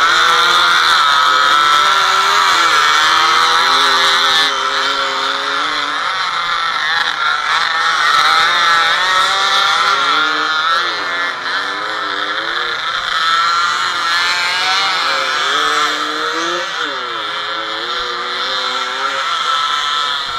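Small two-stroke off-road motorcycle engines racing, heard from on board one of the bikes. The pitch rises and falls repeatedly as the throttle opens and closes and the riders shift gear.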